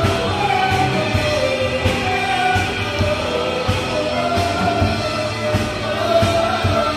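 Live worship band playing: a male vocalist sings into a microphone over electric guitar, bass guitar and a drum kit.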